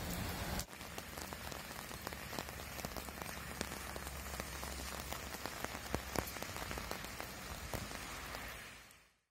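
Steady rain falling on wet pavement, with many sharp raindrop taps close by. The sound drops abruptly just under a second in and fades out near the end.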